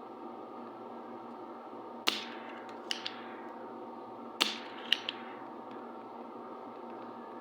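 Two sharp metallic snaps about two seconds apart, each ringing briefly and followed by a couple of lighter clicks, from hand tools at work removing a component from an air-conditioner circuit board, over a steady background hum.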